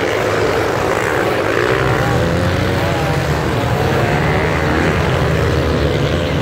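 A pack of motocross bikes racing through sand, many engines revving and dropping at once in overlapping, wavering pitches.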